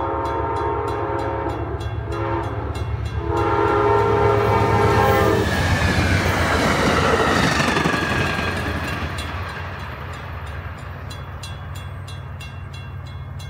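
An Amtrak train sounds its horn for a grade crossing: a long blast, a short one, then another long blast. It then rushes past on the rails, loudest about four to eight seconds in, before fading. The crossing's warning bells keep ringing, clearest at the start and again at the end as the train moves off.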